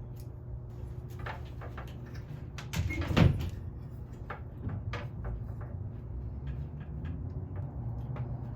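Screen mesh and an aluminium window-screen frame being handled and cut on a work table: scattered light clicks and rustles, with one louder knock about three seconds in.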